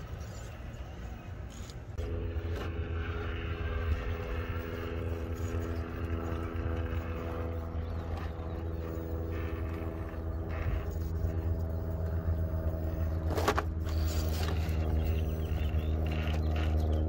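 Cross RC Demon SU4C rock crawler's electric motor and geared transmission whining steadily as it crawls over rock, starting about two seconds in, with tyres scraping on stone. A sharp knock comes about three-quarters of the way through.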